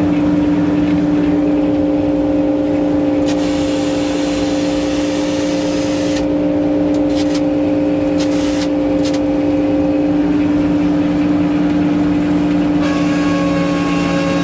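An engine running steadily at a constant speed, with a hiss that comes and goes through the middle.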